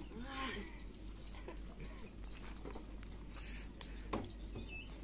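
Chickens clucking and small birds chirping faintly in the background, with one light knock a little after four seconds.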